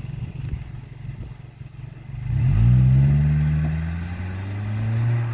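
2021 Toyota Camry 2.5-litre four-cylinder running through an aftermarket MTR split exhaust: idling, then revved about two seconds in, the note rising quickly and falling back slowly, with a smaller swell near the end.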